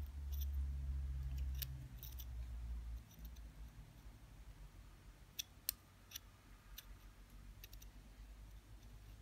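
Small screwdriver and thin resistance wire clicking and ticking against the steel deck and post screw of a Genesis rebuildable atomizer during a coil build: scattered sharp clicks, the two sharpest a little past halfway. A low rumble runs through the first three seconds.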